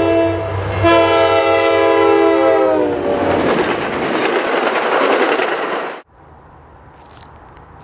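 Nathan K5LA five-chime horn on an MBTA EMD F40PH locomotive sounding two blasts, the second dropping in pitch as the locomotive passes (Doppler). The rushing, clattering noise of the train going by follows and cuts off abruptly about six seconds in.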